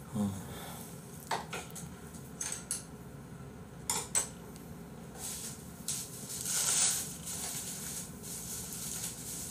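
A few faint, scattered clicks and light knocks, with a soft rustling hiss about six to seven seconds in.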